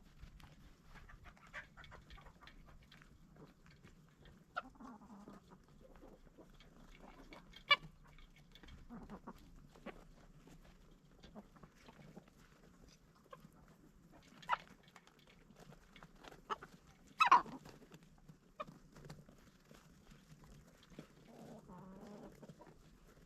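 Chickens clucking and calling now and then, with a few short, sharp, louder calls; the loudest and longest comes about seventeen seconds in.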